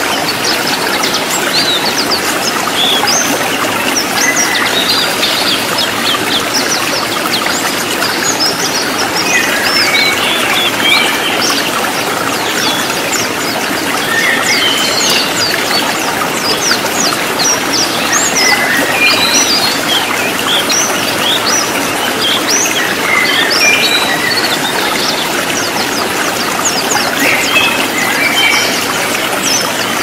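Several white-eyes (pleci) giving quick, high chirps and twittering song, many short notes in close succession, over the steady rush of a running stream.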